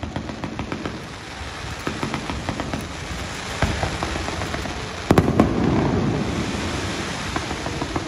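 Fireworks going off close by: a steady stream of crackling pops, with a cluster of louder bangs about five seconds in, followed by a dense crackle that slowly fades.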